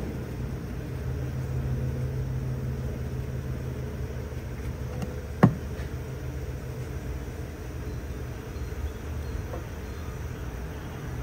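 A vehicle engine running steadily with a low hum, and one sharp click about halfway through.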